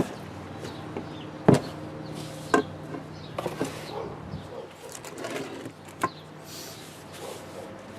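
Handling noises while working on an adze: a few sharp knocks of tool and wood with scraping and rubbing between them, over a steady low hum that stops about four and a half seconds in.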